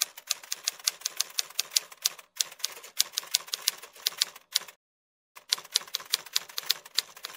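Typewriter keystroke sound effect: rapid clacking clicks, about five a second, that break off briefly about two seconds in and for about half a second around five seconds in.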